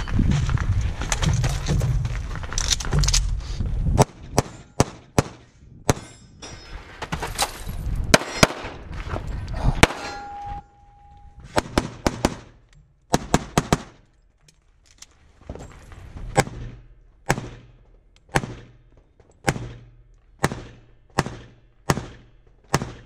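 A string of pistol shots on a practical-shooting stage, starting after a few seconds of low rumble. Some shots come in quick pairs, and a steel target rings briefly about ten seconds in. In the later part the shots come singly, roughly a second apart.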